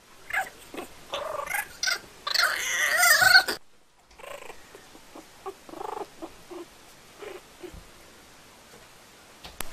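Kitten and puppy play-fighting, with a run of short, rough animal vocal sounds. They build to a loud stretch about two to three and a half seconds in, cut out briefly, then go on as quieter, scattered sounds.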